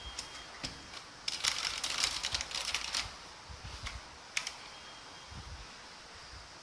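Keys being pressed on an Obins Anne Pro 60% mechanical keyboard with Gateron switches: a few single keystrokes, a quick flurry of typing about a second in, then more scattered single key presses.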